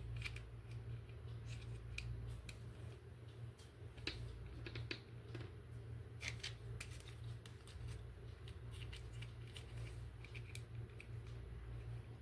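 Irregular small clicks and snips of a plastic toy and its packaging being handled, over a steady low hum.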